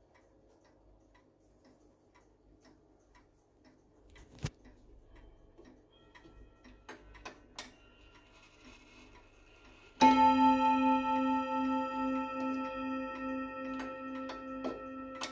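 ODO wall clock striking its brass bell once, about ten seconds in, as its minute hand is turned by hand to the half hour; the bell rings on and fades slowly. Before the strike, faint ticking and small clicks come from the movement as the hand is pushed round.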